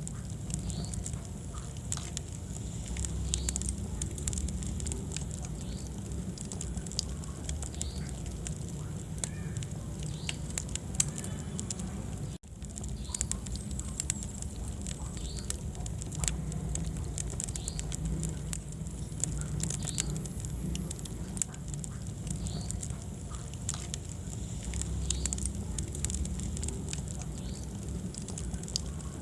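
Wood fire burning in a fireplace: a steady low rumble of flames with frequent sharp crackles and pops from the burning logs. The sound cuts out for an instant about halfway through.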